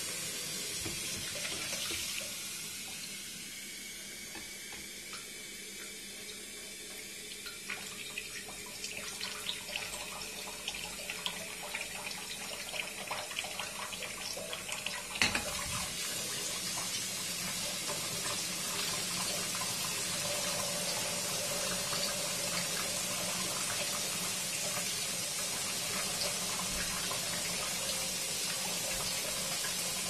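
Kitchen faucet running into a glass electric kettle as it fills, a steady splashing stream of water. One sharp knock about halfway through, after which the stream runs a little louder.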